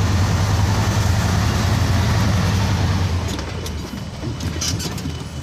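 Truck engine and cab heard from inside while driving on a gravel road: a steady low drone with road noise that eases off about three seconds in, followed by scattered rattles and knocks.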